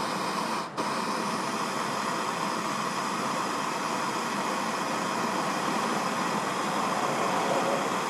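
Steady hiss of a handheld gas torch flame heating a pre-soldered Anderson power-pole contact so its solder melts, with a brief dropout just under a second in.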